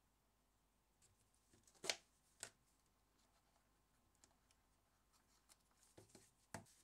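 Faint handling of a plastic tub of cotton swabs: two sharp clicks about two seconds in as the lid comes off. Light clicks and rustles follow as swabs are pulled from the bundle, with two more clicks near the end.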